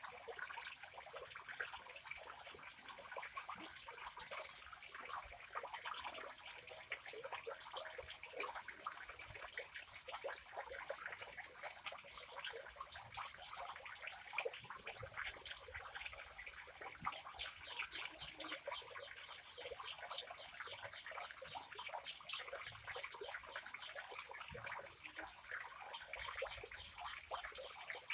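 Water trickling and splashing steadily into a fish pond, a constant run of many small quick splashes.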